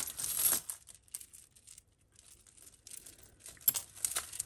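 Costume jewellery being handled: a short rustle as the pile is disturbed, then a few sharp clicks of faux pearl beads and metal chain knocking together near the end.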